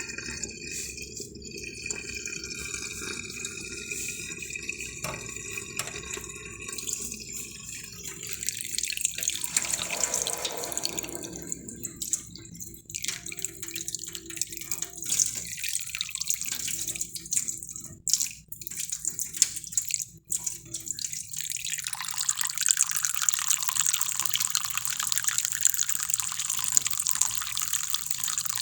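Water running and dripping, with a few sharp ticks in the middle and a steady hiss of flowing water from about two-thirds of the way in.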